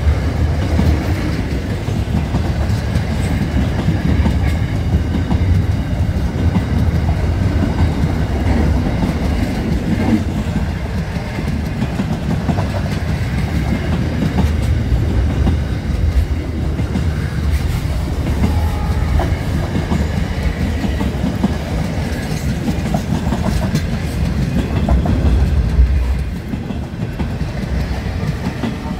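Container freight train passing close by: a steady rumble of the wagons, with the wheels clicking over the rail joints.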